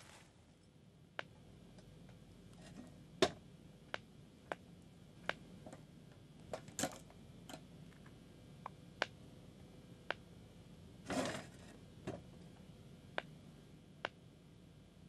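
Quiet room tone with a faint hum, broken by sharp clicks and ticks at irregular spacing, roughly one a second, the loudest a few seconds in, and a short rustling noise about eleven seconds in.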